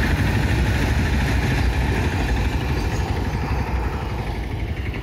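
Motorcycle and auto-rickshaw engines idling, mixed with the rumble of a freight train passing, slowly fading.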